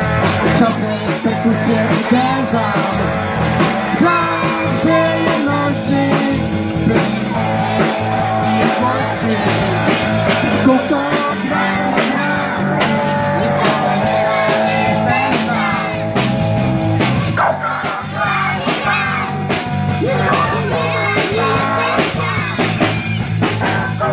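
Live amplified rock song: a group of children singing together into microphones over electric guitar and drums.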